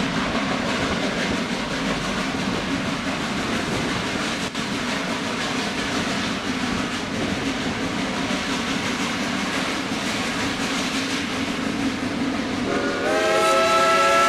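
Steady running noise of a steam train, heard from an open passenger car. About 13 seconds in, the steam locomotive's whistle starts to blow: a chord of several tones that slides up a little, then holds, louder than the train.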